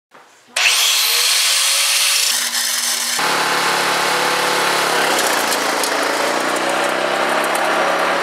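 An angle grinder spins up with a rising whine and grinds metal with a loud hiss. About three seconds in it cuts to the steady running of a Yard Pro LT 16.5 riding lawn tractor's engine.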